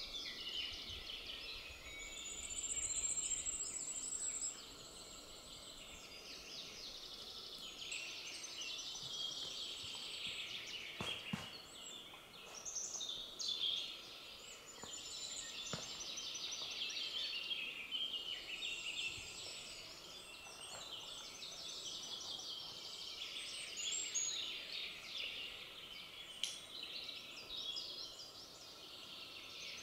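Several wild songbirds singing at once, overlapping trills and rapid chattering phrases, with a high, fast trill standing out about three seconds in.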